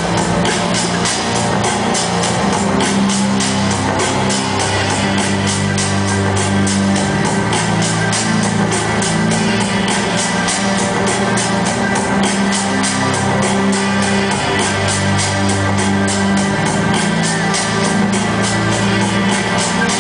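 Loud music with a steady, driving beat, played over a large arena's sound system.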